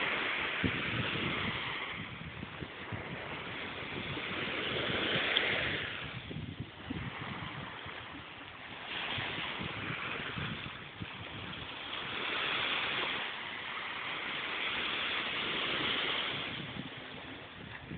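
Small ocean waves breaking and washing up the sand, the surf's hiss swelling and fading every few seconds, with wind buffeting the microphone.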